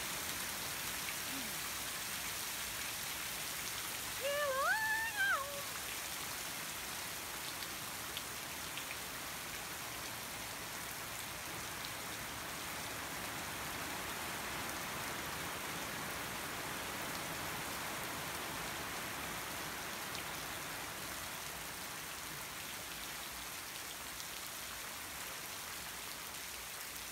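Heavy rain falling steadily on a garden lawn and foliage. About four seconds in, a short pitched call rises and falls briefly above the rain.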